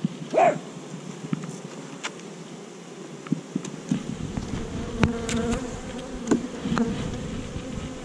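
Honeybees buzzing around an opened hive: a steady hum that grows stronger and more even about halfway through. A short whine rises and falls near the start, and scattered sharp clicks and knocks come through the buzz.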